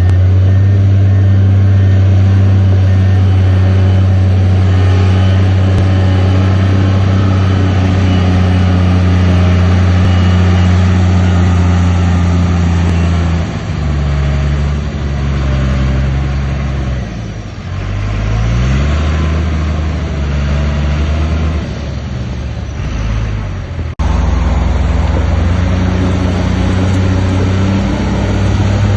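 Heavy diesel engine of an earthmoving machine, a bulldozer or dump truck, running loud and steady under load. Its engine note shifts about halfway through, dropping and then climbing again, and breaks off abruptly for an instant near the end.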